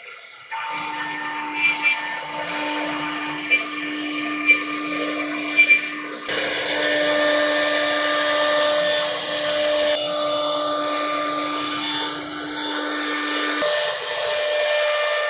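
Blue Elephant 1825 CNC router's spindle running with a steady whine and a few light ticks, then from about six seconds in much louder as the cutter mills a groove through the MDF board.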